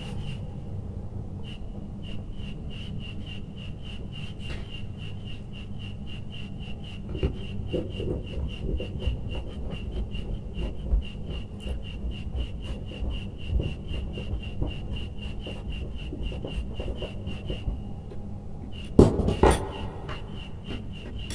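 Hands handling electrical wires and a plastic junction box: rubbing and light knocks, with a louder clatter near the end. A rapid, even, high-pitched pulsing runs underneath.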